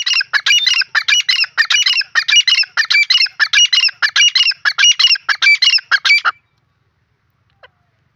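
Grey francolin calling: a loud, fast run of repeated notes in short phrases that stops suddenly about six seconds in, followed by one faint short note.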